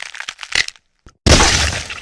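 Sound effects: a quick run of crackling snaps, then after a short gap a sudden loud crash that dies away within about a second.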